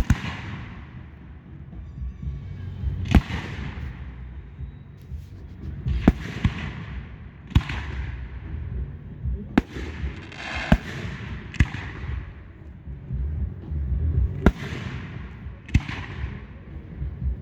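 Fireworks bursting: about nine sharp bangs at irregular intervals of one to three seconds, each followed by a fading crackle, over a low rumble.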